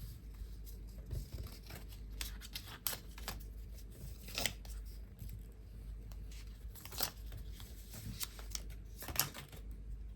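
Paper and cardboard packaging being handled and peeled open as earbuds are taken out of their box. Scattered rustles, scrapes and short tearing sounds, with sharper ones about four and a half, seven and nine seconds in.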